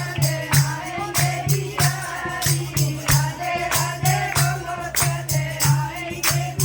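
Hindu devotional kirtan: a group singing together over a steady hand-drum beat of about two to three strokes a second, with jingling hand percussion on the beat.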